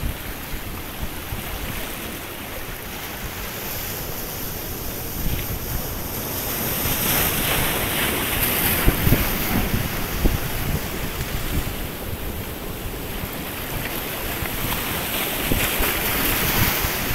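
Surf washing against breakwater boulders, with wind buffeting the microphone; the rushing swells louder in the middle and eases again.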